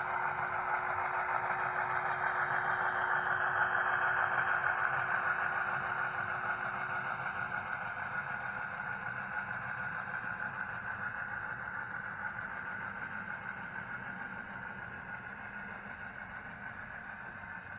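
HO scale model freight train rolling past on its track, a steady rushing rumble of wheels and cars that swells for the first few seconds and then slowly fades as the train moves away.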